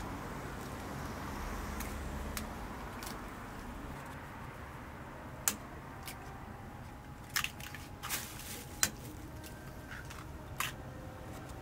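Eggs being cracked by hand, shells tapped sharply against the rims of metal egg bread molds: several separate sharp clicks in the second half, over a steady low background noise.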